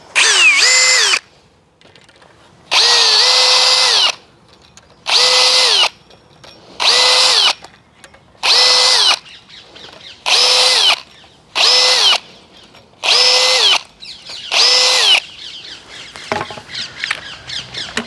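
Cordless drill boring pilot holes into a glulam timber beam through the holes of a steel concealed beam hanger: about nine short runs, each spinning up, holding steady and winding down. Quieter handling noise fills the gaps between holes.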